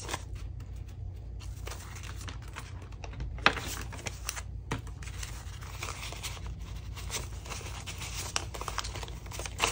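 Paper banknotes rustling and crinkling as they are handled and counted, with a couple of sharper snaps a few seconds in.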